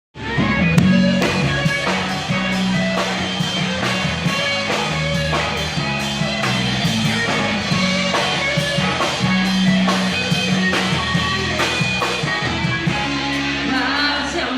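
Rock band playing: guitar, bass and a drum kit keeping a steady beat.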